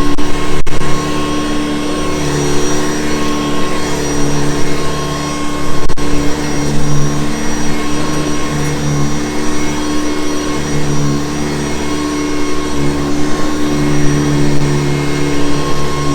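Hoover Convertible U4387 upright vacuum cleaner running continuously with a steady motor hum, its loudness swelling and dipping every few seconds.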